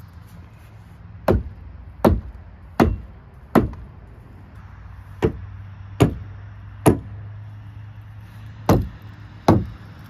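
Nine sharp hammer-like blows on the old wooden deck structure as it is being worked loose: four, a pause, three, a pause, then two, each about three-quarters of a second apart.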